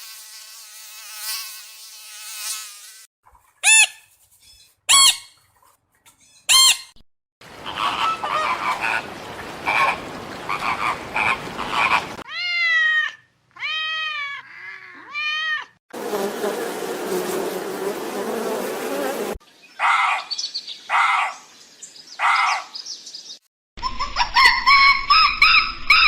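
A run of different animal calls, one after another with abrupt cuts. It opens with a buzzing insect-like drone, followed by three sharp chirps and stretches of rough noisy calling. In the middle comes a series of arched, rising-and-falling calls, and near the end pulsed calls and busy overlapping calls.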